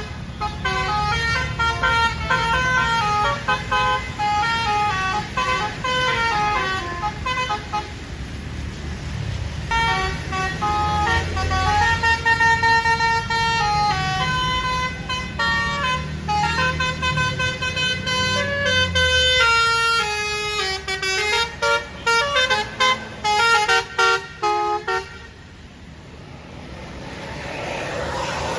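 A tour bus's Basuri multi-tone musical air horn (telolet) plays a melody in chords, stepping from note to note over the low hum of the bus's engine. Near the end the tune breaks into quick choppy blasts and then stops, and a rising rush of noise follows.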